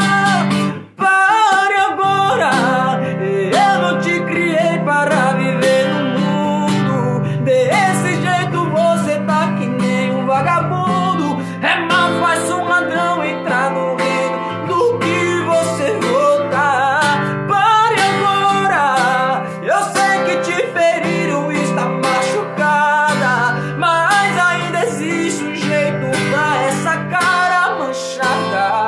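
A man singing over a strummed acoustic guitar, with a brief break in the strumming about a second in.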